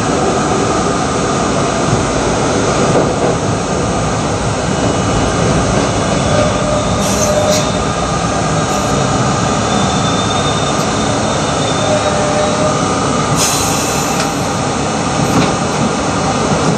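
R32 subway car running out of the station into the tunnel: a steady loud rumble of wheels on rail, with a faint wheel squeal partway through and a couple of brief high-pitched screeches.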